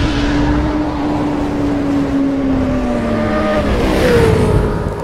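Motorcycle drum brake giving a loud, horn-like groan over a low rumble. The pitch sinks slowly for about three and a half seconds, then swoops up near the end. The owner puts this noise down to rust in the drum from washing or rain water, and worn brake shoes.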